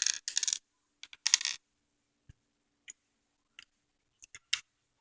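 Plastic Lego pieces clattering and clicking as they are handled: two short rattling bursts in the first second and a half, then a few light scattered clicks.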